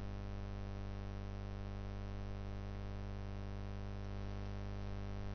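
Steady electrical hum, buzzy with many overtones, holding unchanged throughout.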